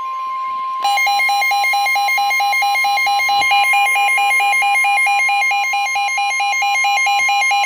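Emergency alert attention tones: a steady high electronic tone, joined about a second in by a rapidly pulsing alarm tone, the two sounding together. They are the attention signal that announces an emergency weather warning.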